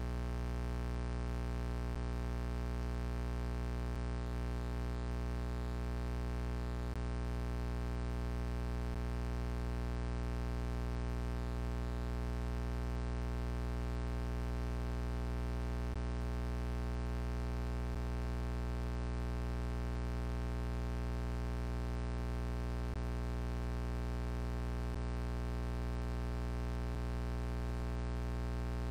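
A steady, unchanging low hum made of many held tones, strongest at the bottom, with no change in pitch or loudness.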